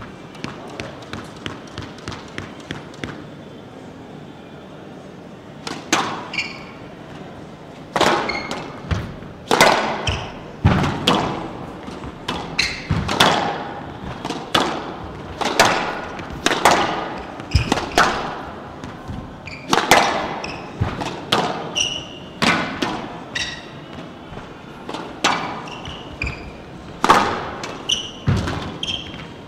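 A squash ball being tapped lightly a few times, about two a second, then a rally: the ball struck with rackets and smacking into the front and glass side walls about once a second, each hit ringing off the court. Short high squeaks of shoes on the court floor come between the hits.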